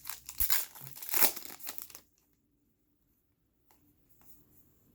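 Foil trading-card pack wrapper crinkling and tearing in the hands for about two seconds, loudest about a second in. Then near silence with a few faint taps.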